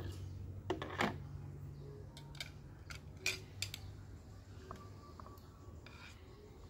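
Scattered light clinks and taps of a metal spoon against a ceramic bowl, with a plastic funnel and plastic bottles being handled, over a faint low hum. The taps come several times a second early on and thin out later.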